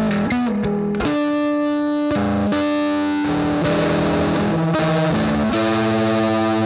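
Electric guitar with distortion and reverb, played through a Headrush pedalboard: sustained chords that ring out and change about once a second.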